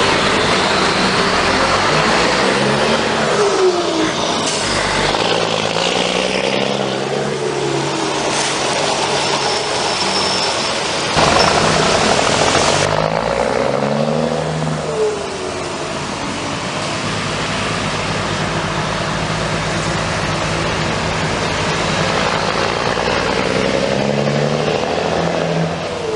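DAF XF95 truck's six-cylinder diesel engine revving up three times, about ten seconds apart, the pitch climbing and then dropping back each time. About eleven seconds in there is a loud rushing hiss lasting a couple of seconds.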